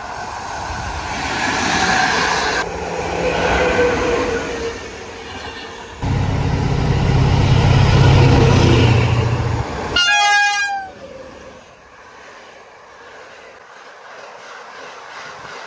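Trains passing through a station, cut together: first a locomotive-hauled train rolling by with horn tones, then the deep, steady engine of an SM42 diesel locomotive running loud for a few seconds. Just after that a brief falling tone sounds, then coaches roll past more quietly.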